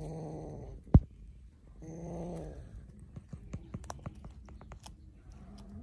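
Ginger kitten growling low over its raw fish, twice, with one sharp, loud knock about a second in. After that it chews the fish, with many small, quick clicks and crunches.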